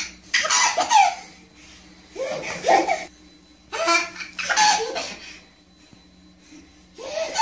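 A baby laughing in four separate bouts of belly laughs, each lasting about a second, with short pauses between.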